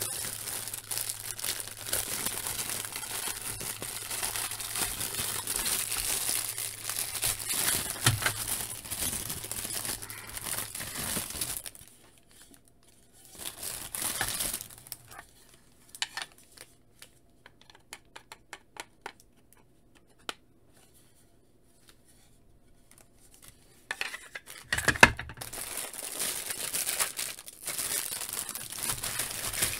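Clear plastic wrapping crinkling and tearing as hands unwrap grey plastic diorama floor panels. About twelve seconds in it drops to a quieter stretch of scattered light clicks as the plastic panels are handled, and the crinkling starts again near the end.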